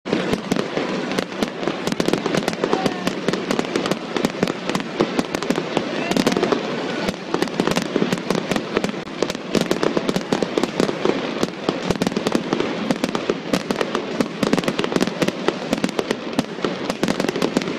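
Ground fountain fireworks spraying sparks: a dense, unbroken crackle of many sharp pops over a steady hiss.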